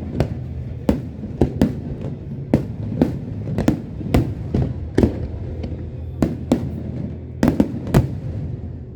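Fireworks bursting in quick, irregular succession, about two sharp bangs a second, with a denser cluster near the end, over background music.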